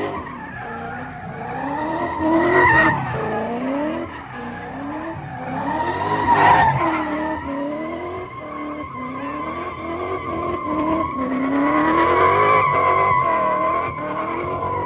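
Car tyres squealing in a long, sustained skid while the engine revs rise and fall over and over, as a car spins its wheels through a takeover stunt. The squeal swells loudest about two and a half and six and a half seconds in, and again near the end.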